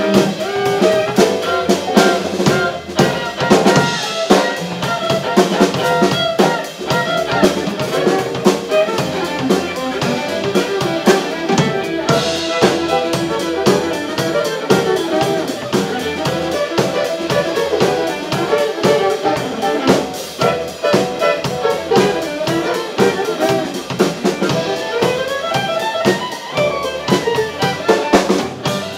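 Live band playing an instrumental tune on fiddle, banjo, guitar, upright bass and drum kit, with a steady drum beat under the bowed and picked strings.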